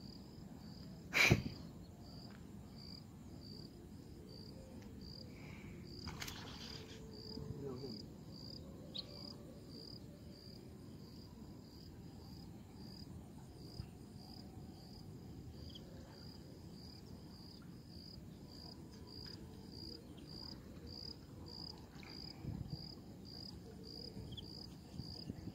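An insect chirping steadily in short, high-pitched, evenly spaced pulses, just under two a second, with one sharp click about a second in.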